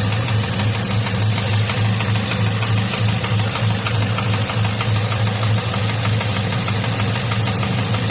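Freshly built truck engine, about 100 miles on it, running steadily with a rapid, even knock. The owner suspects trouble in the valve train, a wrist pin, or rod knock.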